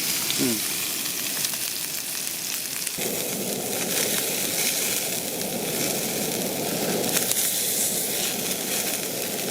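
Whole mackerel grilling over an open wood fire: fat sizzling and the burning wood crackling with faint ticks. A lower rushing noise joins about three seconds in.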